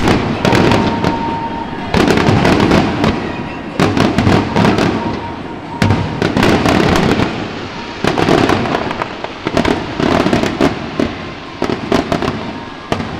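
Fireworks display bursting close by: a loud bang every second or two, each trailing off in a rolling echo, with crackling between the bangs.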